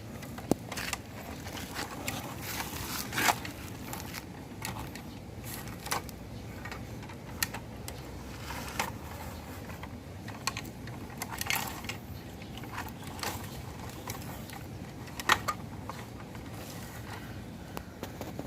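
Plastic toy vehicles being played with in sand: irregular small clicks, knocks and short scrapes, a few louder knocks among them.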